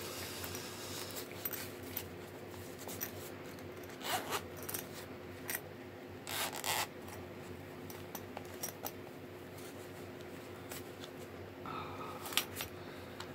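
Zipper on a black fabric zippered knife pouch being pulled open in a few short strokes, with rustling and light clicks of the pouch being handled.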